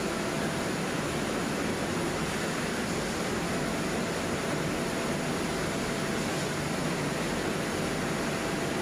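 Palm oil mill machinery running: a steady, even roar with no distinct knocks or rhythm.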